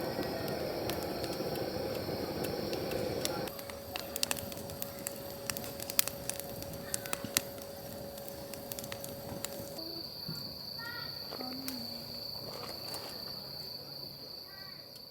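Outdoor ambience in short cuts. It opens with a steady rumbling hiss, which gives way after about three seconds to a steady hum with scattered sharp clicks. About ten seconds in, a steady high-pitched insect-like trill with a few faint chirps takes over.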